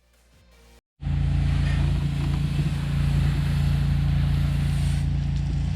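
Pressure washer's engine running steadily with a low hum and a hiss of spray, starting abruptly about a second in after a brief near silence.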